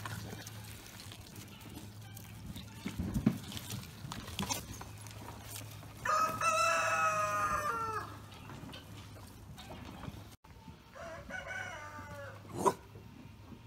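A rooster crowing once, a long call of about two seconds that starts about six seconds in and drops in pitch at the end, followed by a shorter call near the end. A dull thump about three seconds in and a sharp knock near the end are briefly louder than the calls.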